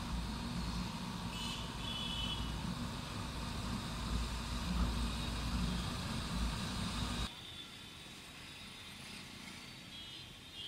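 Motorcycle engine running steadily under wind and road noise. About seven seconds in it drops off suddenly to a much quieter background. A brief high-pitched chirp comes about two seconds in.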